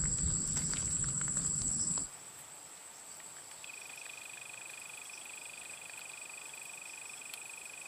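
Insects and frogs calling at dusk: a steady high-pitched trill, joined about four seconds in by a second, lower steady trill. A low rumble in the first two seconds stops abruptly.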